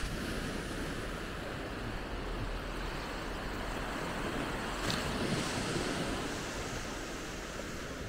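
Small waves breaking and washing up a sandy shore, with wind buffeting the microphone. The surf swells louder about five seconds in.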